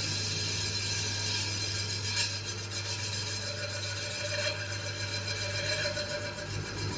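Metal lathe turning an alloy wheel while the cutting tool skims its rim: a steady motor hum under a continuous scraping cut.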